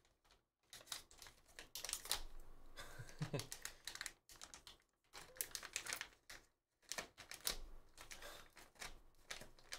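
Plastic foil trading-card pack wrapper being peeled and torn open by hand: an irregular run of crinkles and crackles with short pauses.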